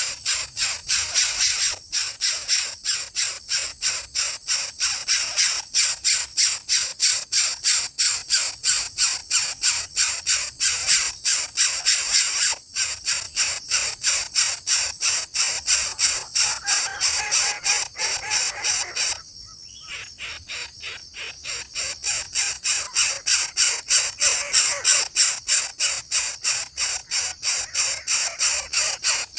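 Raspy, high-pitched bird calls repeated rapidly, about four a second, with a short break about twenty seconds in.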